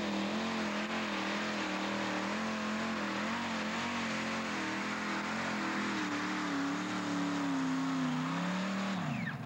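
Multi-engine modified pulling tractor running flat out under load as it drags the weight sled, its engine note wavering up and down and then dropping in pitch near the end.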